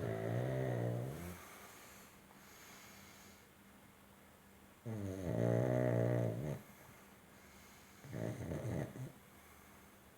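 Pug snoring in its sleep: three snores, the first two each over a second long and the third, about 8 seconds in, shorter and quieter, with soft breathing between.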